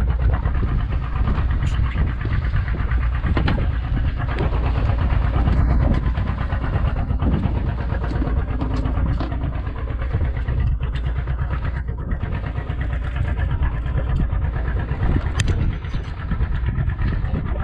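An engine running steadily at a constant speed, a low, even rumble that does not change.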